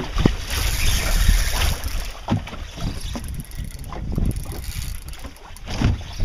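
Wind buffeting the microphone in uneven gusts, with water sloshing against a small boat's hull. A hiss comes in about half a second in and lasts about a second.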